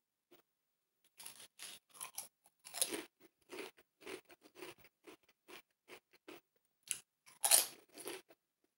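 Potato chips being chewed with a run of crunches, about two a second, starting about a second in. The loudest crunches come about three seconds in and again near the end.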